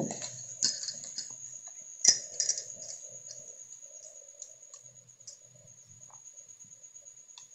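Scattered clicks and light knocks as fresh homemade butter is scraped off a wooden churning stick into a steel bowl, the loudest knock about two seconds in, growing sparser toward the end, over a thin steady high-pitched tone.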